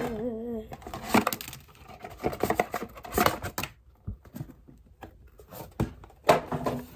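Cardboard packaging of a gaming mouse being handled, the inner tray out of its sleeve: scattered rubs, scrapes and taps, with one loud knock about six seconds in.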